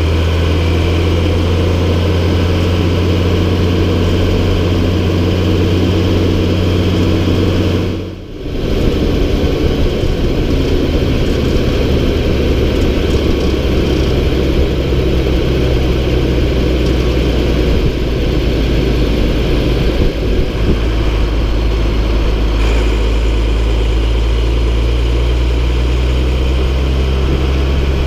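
MB Trac 1800's six-cylinder diesel engine running steadily and loud, with a brief drop about eight seconds in and the engine note shifting slightly now and then.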